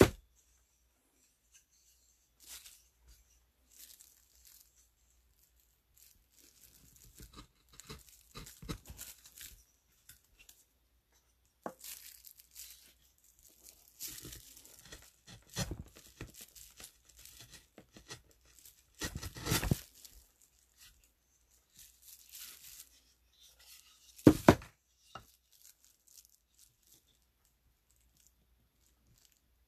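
A hand wood-carving tool cutting and scraping into a small wooden block for a woodblock print, in irregular short strokes with pauses between them. A couple of the strokes, about two-thirds and four-fifths of the way through, are louder.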